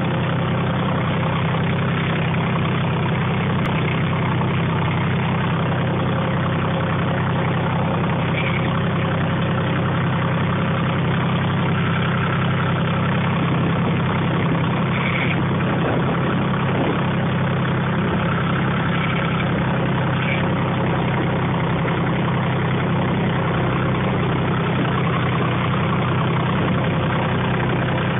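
Tractor engine idling steadily with an even, low hum.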